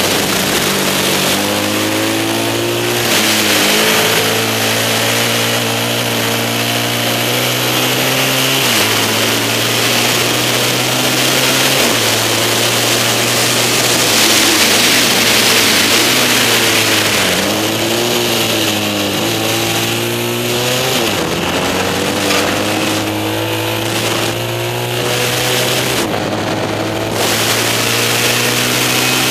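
Yamaha XS650 parallel-twin engine of a vintage racing sidecar at race pace, heard onboard. The engine note climbs under acceleration and drops sharply at each gear change and into corners, over heavy wind noise on the microphone.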